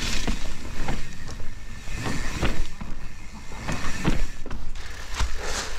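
Mountain bike being ridden down a wet, muddy trail: rolling tyre noise with irregular knocks and rattles from the bike as it goes over bumps.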